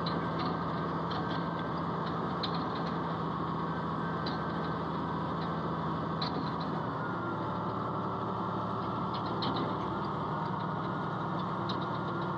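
Komatsu bulldozer's diesel engine running steadily, its note shifting slightly about seven seconds in, with short sharp clicks now and then over the top.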